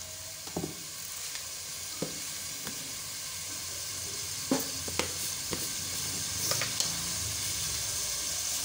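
Chicken pieces sizzling as they sauté in oil in a pot, with a wooden spoon stirring them and clicking against the pot a handful of times.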